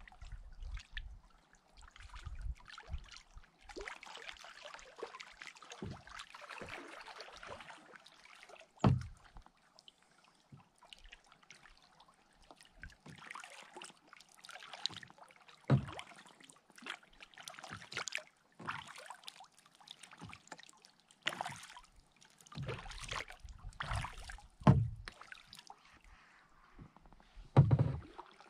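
Kayak paddling: irregular splashes and drips of the paddle blade in the water, with a few short, louder knocks.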